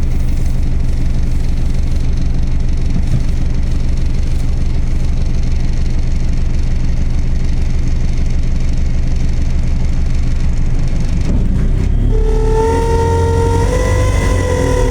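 Bus drivetrain running with a steady low rumble. About twelve seconds in, a pitched whine comes in over it and rises slightly, as the bus accelerates.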